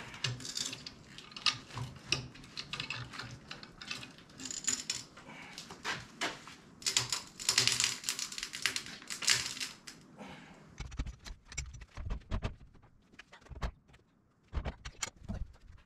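Rapid, irregular metal clicking and clanking as a white pine log is levered and turned with a cant hook on a portable sawmill's bed. The clicking thins out later on, and a few low thuds come in near the end.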